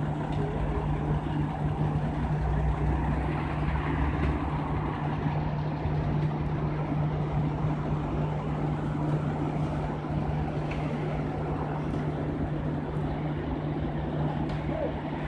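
Bus engine idling steadily, a constant low hum with a rumble beneath it.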